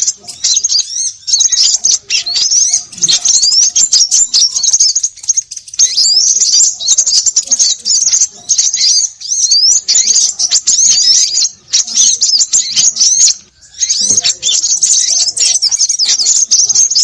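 A noisy chorus of many small birds chirping rapidly over one another, a dense run of high, quick rising notes with a couple of brief pauses. It is a recorded bird-lure commotion, played to draw small birds in.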